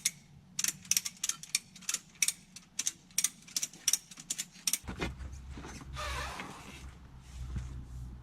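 Mini excavator at work: sharp metallic clicks, two or three a second, over a low steady engine hum. About five seconds in, the clicking stops and a deeper, louder machine drone takes over.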